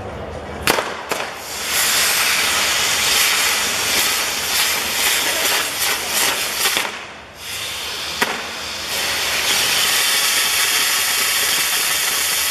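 Ground fireworks jetting with a loud, steady hiss, with a couple of sharp cracks about a second in. The hiss drops away for a moment around seven seconds, then comes back with another crack and runs on.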